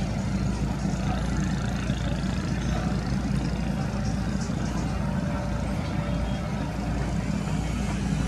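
Steady low drone of a heavy engine running.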